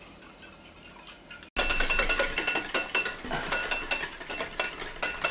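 A whisk beating egg whites in a bowl, clinking against the side in rapid, ringing strokes. The strokes start suddenly about a second and a half in, after faint room tone.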